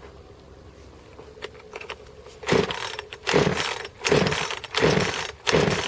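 Two-stroke chainsaw being pull-started cold: quick, evenly spaced yanks on the recoil starter cord, about one a second, beginning about two and a half seconds in. The engine turns over with each pull but does not catch yet.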